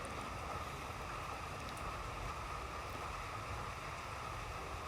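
Steady faint hiss of background room noise, with no distinct clicks or handling sounds.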